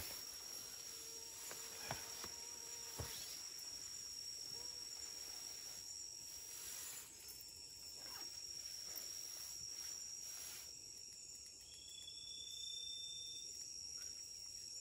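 Night insects in the forest trilling steadily at a high pitch, with a second, lower insect call joining briefly about twelve seconds in. A few soft knocks and rustles sound in the first three seconds.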